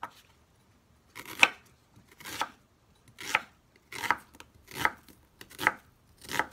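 Kitchen knife slicing a sweet white onion on a wooden cutting board: seven unhurried strokes, about one every three-quarters of a second, each a short crisp cut through the onion ending in a knock of the blade on the board.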